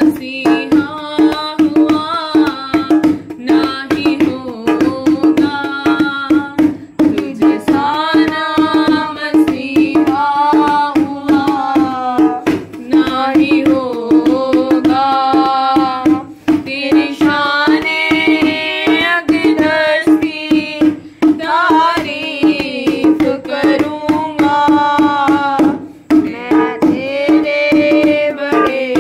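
Hindi-Urdu devotional song: a voice sings phrases of melody over tabla and a steady held drone note.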